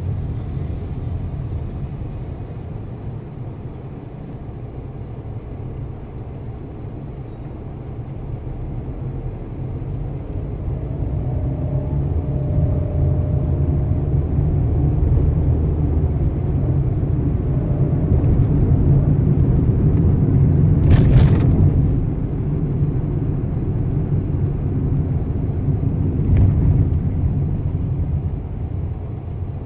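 Car driving on city streets: a low rumble of engine and road noise that grows louder through the middle, with a short hiss about two-thirds of the way through.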